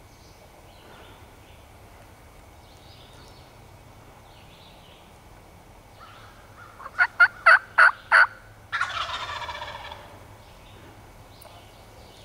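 Wild turkey: five quick, loud yelps a little past the middle, then a gobbler gobbles once right after them, a rattling call of about a second that fades out.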